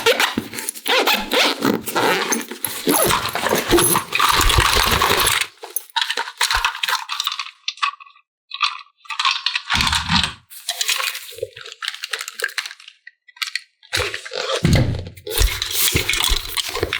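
Small plastic toy pieces being handled, rattling and clicking against each other in irregular bursts, with short pauses.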